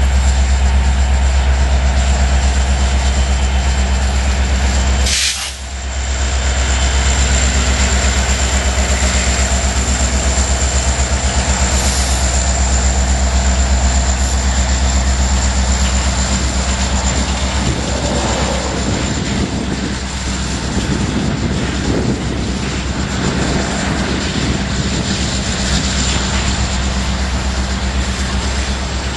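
Empty covered hopper cars of a freight train rolling past: a steady rumble of steel wheels on rail, with even rhythmic clicking of wheels over rail joints in the second half.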